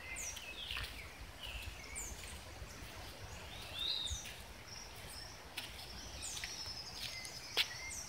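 Several wild songbirds calling and singing at once, faint: short high whistles and falling notes, with a longer high trill in the second half. Green-winged saltators (trinca-ferro) are among the singers.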